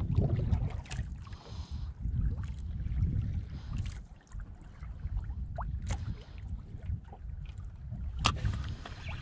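Water lapping and splashing against a small boat's hull, with wind rumbling on the microphone and scattered sharp clicks and knocks; the loudest click comes near the end.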